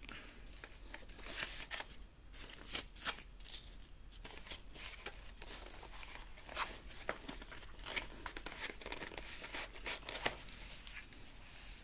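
Cardboard mailer being torn open by hand: irregular short rips and scratchy rustles of card, with a few sharper ones.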